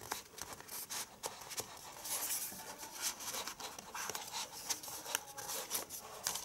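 Rustling and light clicks of paper, card and plastic packaging being handled, with small taps scattered through.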